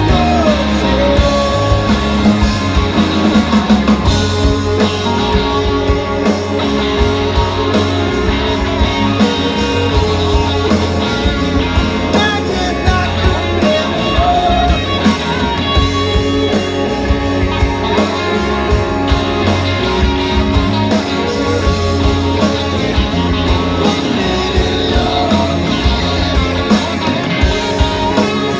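Rock band playing with guitar over bass and drums, a steady beat throughout.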